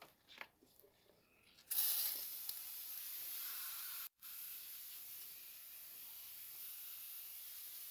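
Water spraying steadily from a nozzle, a constant hiss that starts about two seconds in after a few small clicks and breaks off for an instant about four seconds in, rinsing spilled coolant off an engine bay.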